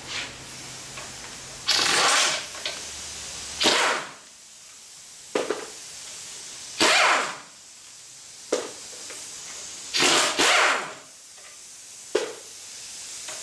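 A pneumatic tool running in short bursts of about half a second to a second, a few seconds apart, as it spins bolts out, with sharp metal clicks in between.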